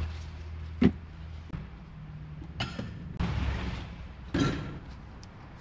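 Go-kart parts being unpacked from a cardboard box: several separate knocks and thumps as parts are handled and set down, with rustling of packing paper.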